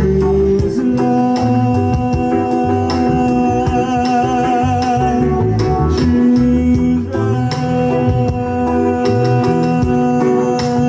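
Live reggae band music: a bass line and guitar over steady percussion. A long held note wavers in pitch around the middle and comes in again near the end.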